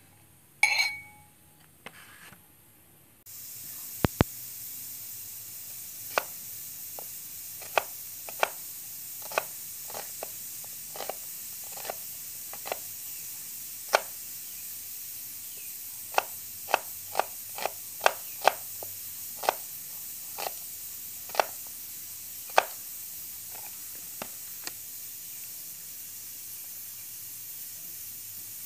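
Chef's knife slicing onion on a wooden cutting board: sharp, irregular knocks of the blade on the board, one or two a second, over a steady hiss that comes in suddenly about three seconds in. About a second in, a short ringing clink as slices are scraped off the board into a glass bowl.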